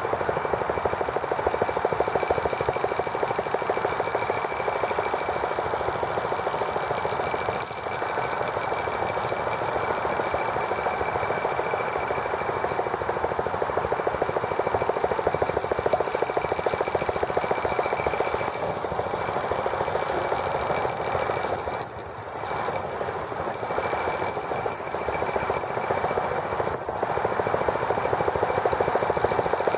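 Small gasoline model engine of a T26 toy tractor kit running with a fast, steady rattling beat as the tractor drives along, dipping briefly in loudness a few times.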